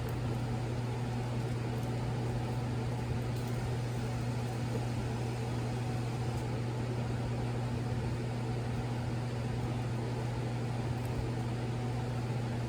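Steady low machine hum at an even level throughout, with a few very faint taps.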